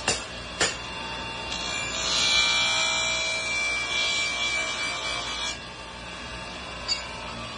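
Bench belt grinder running while the edge of a 3D heel support pad for a horseshoe is ground against the belt; the grinding is loudest about two to five seconds in and eases off as the pad is lifted away. A few short sharp knocks stand out above it.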